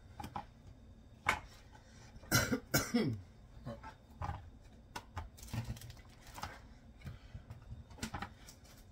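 A woman coughing from a dry, tickly throat, loudest a couple of seconds in, between short knife taps on a cutting board as hot dogs are cut into chunks.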